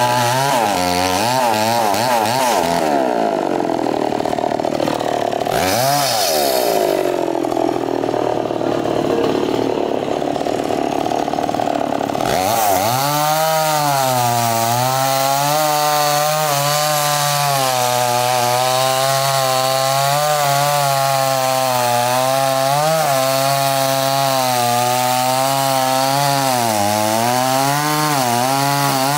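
Two-stroke chainsaw cutting through a coconut palm trunk. The engine swings up and down in pitch for about the first twelve seconds, then holds a steady pitch as the chain runs through the log, dropping away right at the end.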